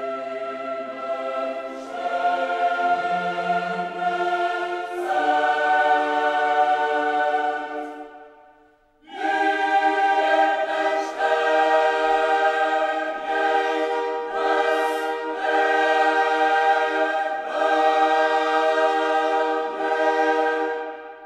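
Choir singing slow, held chords as background music. It fades away about eight seconds in and comes back a second later.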